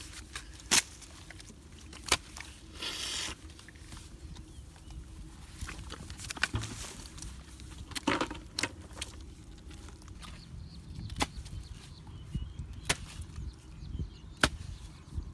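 Sharp knocks, about seven at irregular intervals, as a long digging pole is driven down into packed mud to dig a hole.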